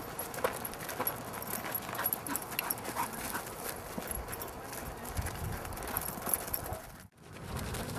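Sheep moving about a pen ahead of a herding dog: irregular hoof taps and scuffles on the ground. The sound drops out briefly about seven seconds in.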